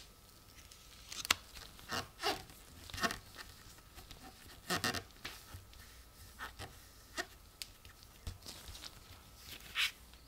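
Cardboard coin holder with a clear plastic film window being folded shut around a coin and pressed flat by gloved hands: irregular crinkles, creases and light taps of card and film.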